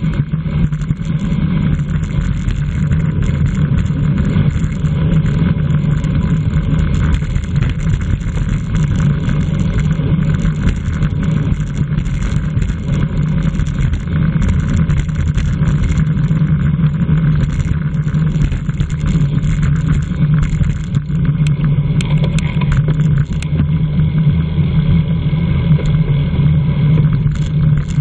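Steady rush of wind buffeting an onboard camera's microphone, with tyre and road noise, on a bicycle racing at speed.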